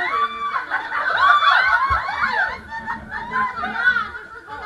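A group of people laughing and calling out over one another.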